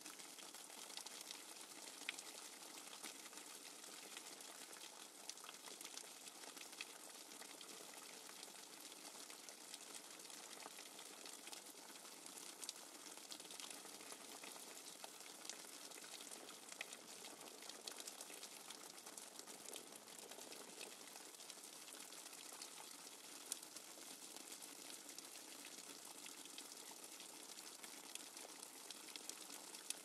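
Rainwater dripping fast and hard: a faint, steady, dense patter of many drops, with a few louder single drips standing out.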